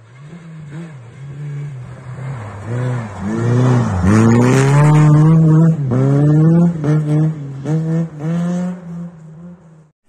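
A rally car at full throttle passing by: the engine's revs climb and drop several times with the gear changes. It is loudest as the car goes past about halfway through, then fades as it pulls away, and the sound cuts off abruptly just before the end.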